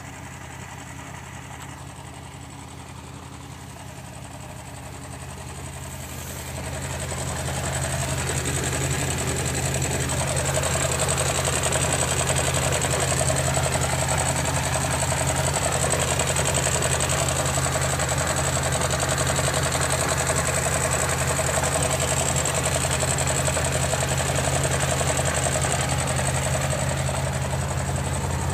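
Jeep Wrangler idling with a rapid ticking from the transmission and transfer case. The owner wants this tick or clank diagnosed as a possible fault. It grows louder about seven seconds in, as it is heard from beneath the Jeep.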